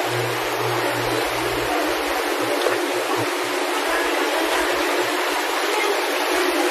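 Steady outdoor city ambience: a continuous, even wash of noise with no single event standing out.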